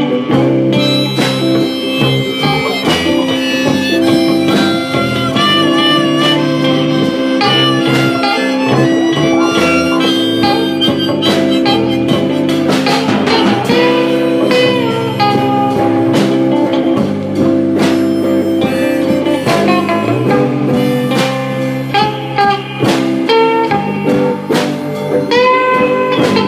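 Instrumental break in a blues-rock song: a harmonica leads over guitar and drums, with no singing.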